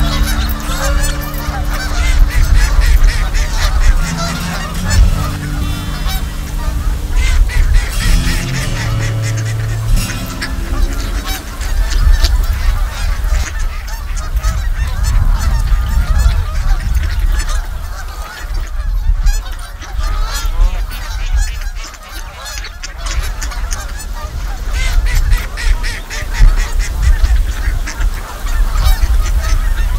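Canada geese honking repeatedly, with wind rumbling on the microphone.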